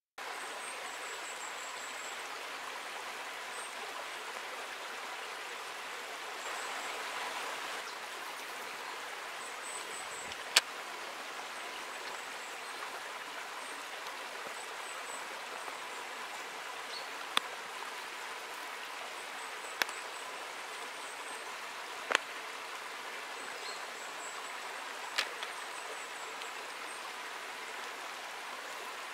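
Small woodland stream trickling and splashing over rocks, a steady rush of water. A few sharp clicks stand out from it now and then, and faint, very high, short chirps recur every few seconds.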